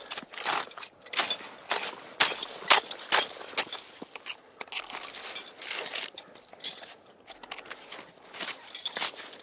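Crunching footsteps, roughly two a second, uneven.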